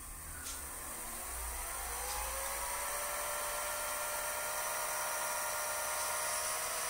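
Opened VCR spooling a mouldy VHS tape at speed past a tissue cleaning pad: a mechanical whine that rises in pitch over the first few seconds as the reels spin up, then holds steady.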